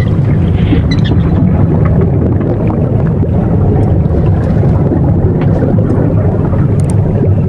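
Steady underwater rumble and water noise, as picked up by a camera beneath the sea surface, with a few faint clicks.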